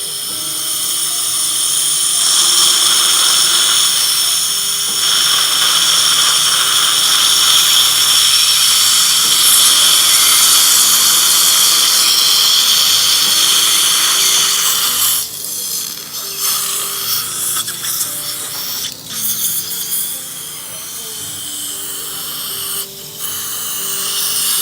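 Dental implant drill whining steadily at a high pitch for about thirteen seconds, then running in shorter spells broken by several brief stops. This is the drilling of an implant procedure, just before the implant is placed.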